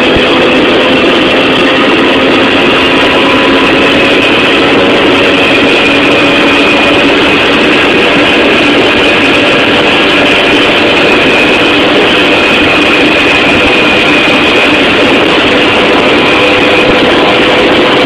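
Jawa Babetta 207.500 moped's small single-cylinder two-stroke engine running at a steady cruising speed while riding, loud and even, its pitch holding nearly constant.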